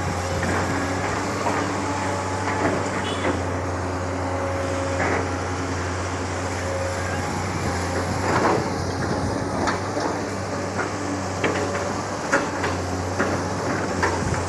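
Long-arm excavator's diesel engine running steadily while it digs, with a whine that steps up and down in pitch as the arm works. Occasional short knocks and scrapes from the bucket in the mud.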